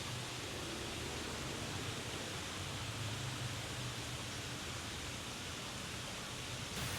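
Steady rushing noise with no distinct sounds standing out in it.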